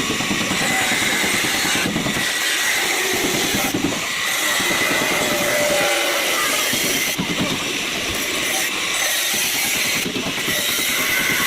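Steady loud hissing noise, with a faint high whine running through it.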